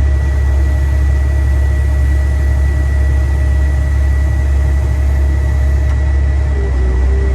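Cat M316C wheeled excavator's Tier 3 diesel engine running steadily under hydraulic load as the boom and stick are worked, with a deep hum and a steady high whine over it.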